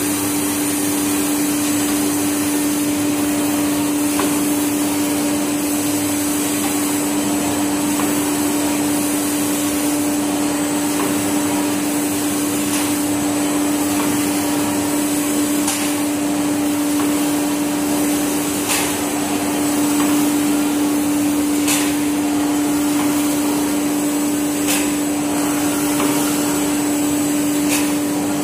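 Automatic maxi-roll toilet tissue band saw cutting machine running: a steady motor hum with one clear tone over a constant mechanical whir. From about halfway through, a sharp click comes roughly every three seconds.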